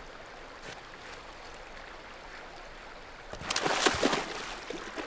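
River water running steadily, then a splash about three and a half seconds in as a bobcat's feet hit the shallow water.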